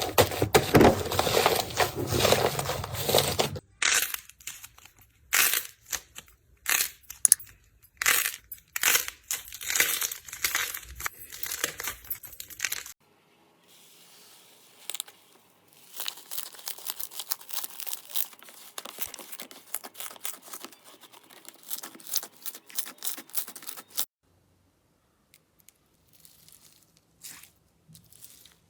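Slime being squeezed and stretched by hand, giving dense crackling, popping clicks and sticky tearing sounds. It comes in several short segments that change abruptly, and goes almost silent near the end.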